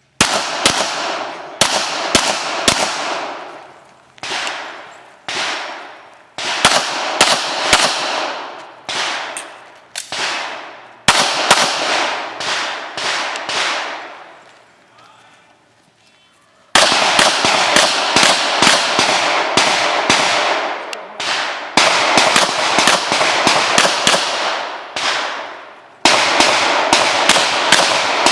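Pistol shots fired in rapid strings, each string trailing off in echo. Firing pauses for about two seconds past the middle, then a long fast string follows.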